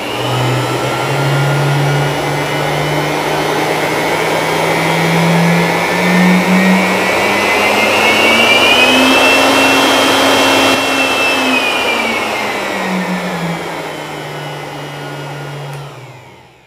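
Handheld electric air blower running through a speed regulator: its motor whine rises steadily as the knob is turned up, holds at top speed for a few seconds, then falls back as the knob is turned down. Near the end the motor winds down to a stop.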